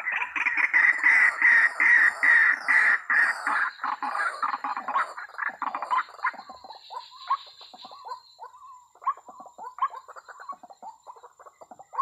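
White-breasted waterhen (ruak-ruak) calls: a rapid run of loud, rough, repeated calls for about six seconds, then quieter, scattered shorter calls. A faint steady high whine runs underneath.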